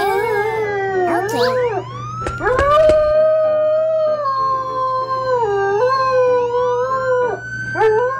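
Dog howling in long drawn-out notes that waver, dip and swoop in pitch, one howl running into the next.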